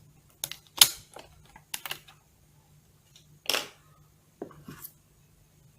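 Light plastic clicks and taps as the opened Nexus 5's frame and new battery are handled and fitted, the loudest about a second in. A short scraping rustle comes about halfway through, over a faint steady low hum.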